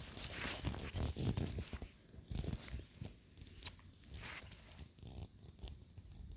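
Irregular rustling and scuffing with scattered clicks and low thumps, busiest in the first two seconds.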